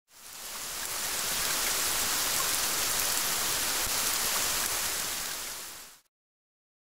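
Rain sound effect: an even hiss of falling rain that fades in, holds steady, then fades away and stops about six seconds in.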